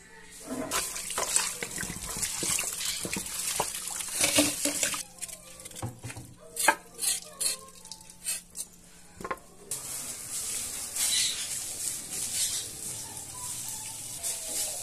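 A broom sweeping a patio floor in quick scratchy strokes. Then come separate sharp knocks from knife work on pig's trotters over a concrete washbasin. From about ten seconds in, water sprays from a garden hose onto the ground in a steady hiss.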